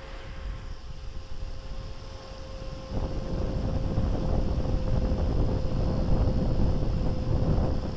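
Wind buffeting the microphone: a low rumble that grows louder about three seconds in, over a faint steady tone.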